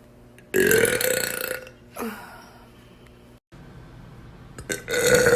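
A woman belching loudly twice. The first long belch comes about half a second in and lasts about a second. A second long belch starts near the end.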